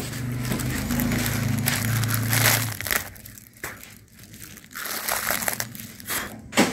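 Plastic packet of hawa mithai (cotton candy) crinkling as it is handled and opened: a dense crinkling for about the first three seconds, then scattered crackles.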